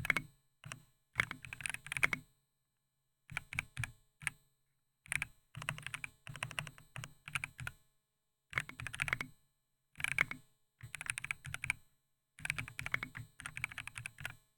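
Typing on the Nyfboard GEN2 98% mechanical keyboard, with its Gateron G Pro 2 yellow linear switches and silicone-and-foam sound dampening. The keystrokes come in quick runs of clicks, broken by short pauses.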